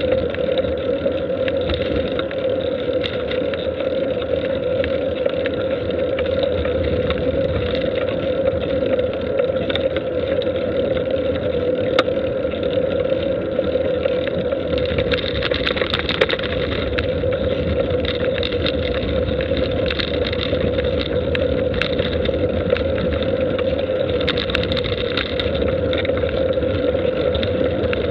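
Steady droning hum with rushing noise from travel along a road, unchanging throughout, with a few faint clicks.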